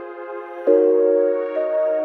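Ambient background music of sustained chords. A new chord starts under a second in, and a higher note joins near the end.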